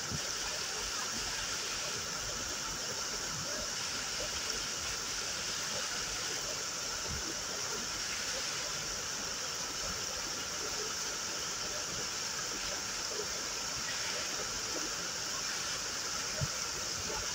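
A waterfall: falling and flowing water making a steady, unbroken rush.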